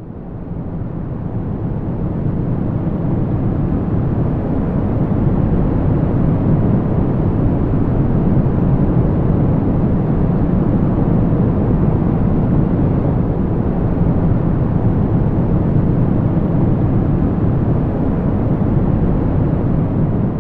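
Strong wind blowing with a deep rumble, swelling up over the first couple of seconds and then holding steady.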